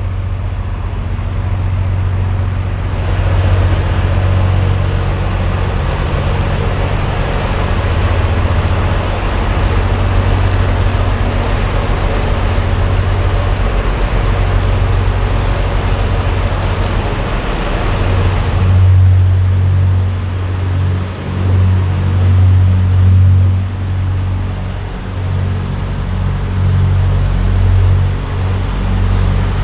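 Narrowboat engine running steadily at cruising pace with a low, even hum. A broad rushing hiss sits over it from about three seconds in until about two-thirds of the way through, then stops.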